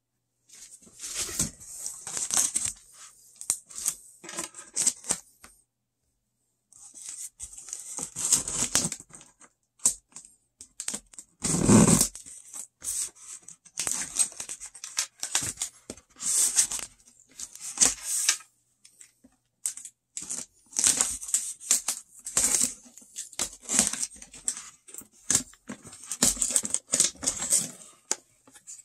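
Packaging being torn open by hand on a cardboard mystery box: repeated short tearing and rustling in irregular spurts, with a louder knock about twelve seconds in.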